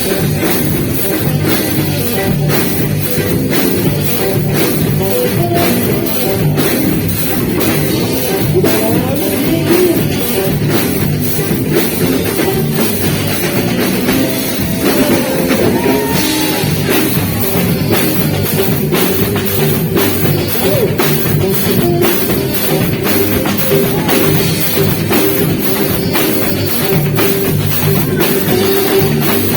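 Live band playing beiradão, the Amazonian dance music, with a drum kit keeping a steady, driving beat under a saxophone melody.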